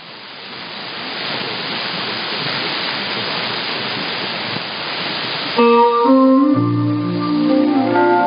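Shortwave radio broadcast: a steady band hiss with no speech, swelling over the first second or so. About five and a half seconds in, instrumental music starts, with held keyboard-like notes over a low bass line, heard through the receiver's narrow audio bandwidth.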